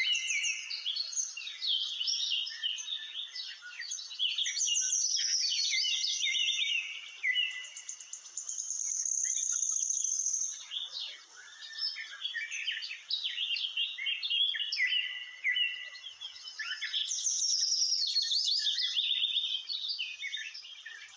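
Many small birds chirping and twittering at once: a dense, unbroken chorus of short high chirps and trills.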